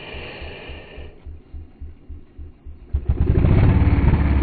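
Motorcycle engine running with a low, even pulse of about four beats a second, becoming much louder about three seconds in.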